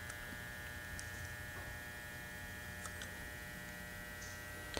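Steady mains hum with a buzzing overtone, and a few faint ticks.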